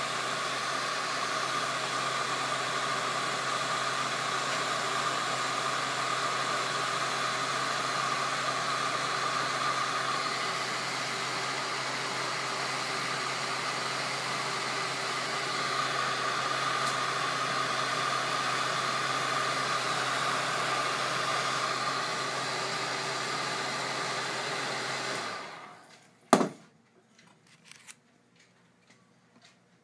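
Electric heat gun blowing steadily on a rehydrated hide-glue joint, warming it so the glue liquefies and the joint can be broken loose. It switches off about 25 seconds in, followed by a single sharp knock and a few faint clicks.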